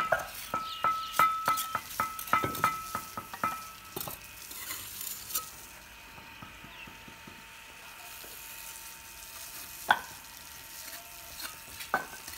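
Brick-laying work: a quick run of sharp ringing clinks from fired clay bricks and a mason's steel trowel being knocked together and set down. It thins out after about four seconds, with a single loud knock about ten seconds in and a few more clinks near the end.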